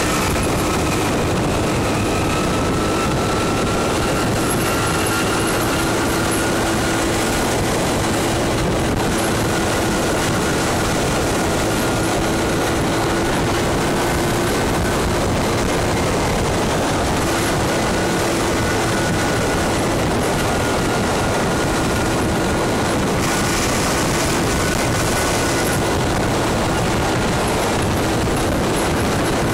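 Scooter riding at a steady cruise: the small engine runs with a steady whine that drifts slightly in pitch, under a constant rush of wind noise.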